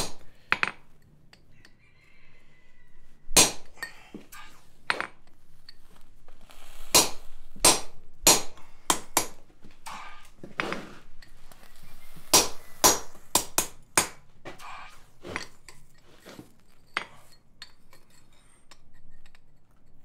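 Hand hammer striking a slot punch driven into a hot steel bar on an anvil, punching a slot: a series of irregular sharp metallic blows, loudest about three seconds in and again between about twelve and fourteen seconds.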